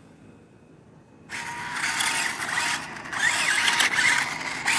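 Toy RC monster truck's electric drive motors and gears whining as it is driven hard and tumbles on grass, starting a little over a second in, the whine rising and falling in pitch with the throttle.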